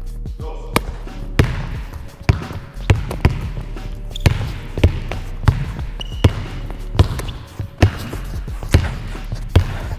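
A basketball being dribbled on a hardwood sports-hall floor, sharp regular bounces about every two-thirds of a second.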